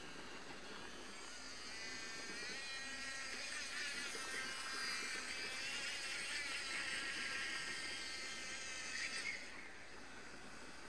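Small DC electric motor driving a 1:50 scale RC model boat's Z-drive, whining as it runs. The pitch rises about two seconds in, the whine is loudest through the middle, and it drops away about nine and a half seconds in.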